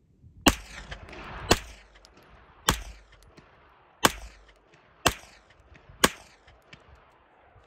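Six 9mm shots from a Smith & Wesson FPC semi-automatic carbine fitted with a Strike Industries Mini Comp muzzle brake, fired at an unhurried pace of roughly one a second, each followed by a short echo.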